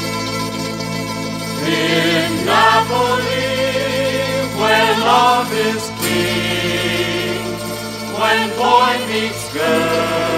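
Background music: a slow orchestral song with a sung melody.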